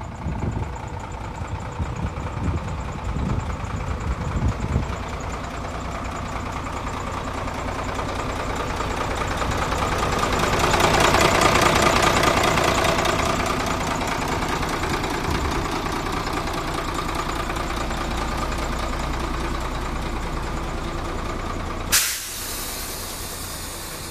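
Sinotruk HOWO 375 dump truck's diesel engine idling steadily. It is heard loudest about halfway through, up close at the engine. A sudden sharp burst of noise comes near the end.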